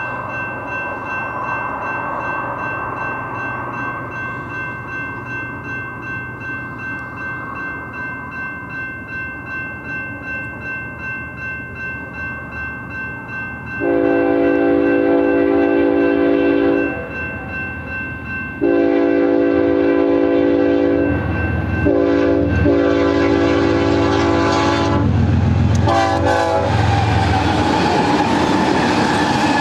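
Grade-crossing warning bell ringing steadily with a regular beat. About 14 s in, the horn of the lead BNSF GE ES44-series locomotive sounds for the crossing in several long blasts, the last one shorter. Near the end the locomotives and double-stack cars pass close by with a heavy rumble and wheel clatter.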